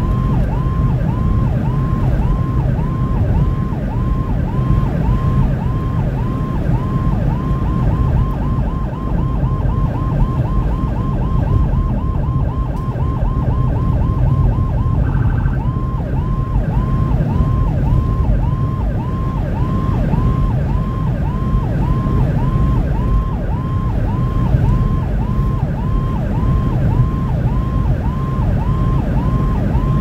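Emergency vehicle's electronic siren heard from inside the cab, yelping up and down about twice a second. It switches to a faster yelp about eight seconds in, with a short different tone in the middle, then returns to the slower cycle. Engine and road noise underneath.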